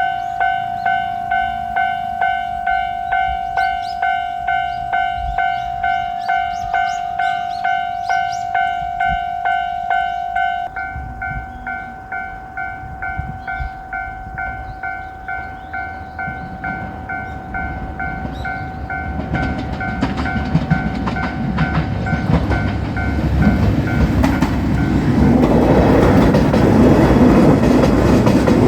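Japanese level-crossing alarm bell ringing steadily about twice a second; about ten seconds in, its tone thins and turns quieter. From about sixteen seconds a JR Shikoku 2700 series diesel limited-express train comes in, its running noise growing loud and drowning out the bell near the end as it passes.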